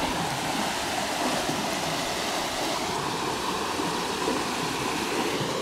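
Steady rushing of flowing creek water, even and unbroken.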